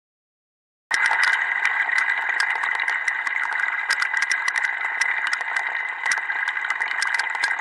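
Steady hiss of water running from a kitchen faucet through the sink plumbing, with frequent small clicks and crackles. It starts suddenly about a second in.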